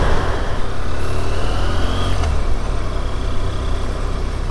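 Onboard sound of a BMW F800GT parallel-twin motorcycle being ridden, with a steady low rumble of wind and road noise over the engine. It gets gradually quieter as the bike slows in traffic.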